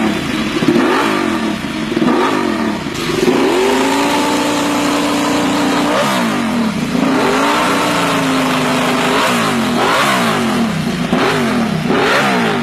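Ducati Desmosedici RR's 989 cc V4 engine being revved: repeated quick blips rising and falling in pitch, with two longer holds at higher revs, about four and about eight seconds in.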